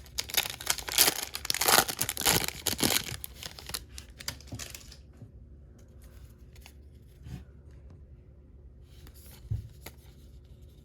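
Plastic foil wrapper of a trading card pack being torn and crinkled, a loud crackling that dies away about five seconds in. After it, only a couple of soft thumps as cards are handled.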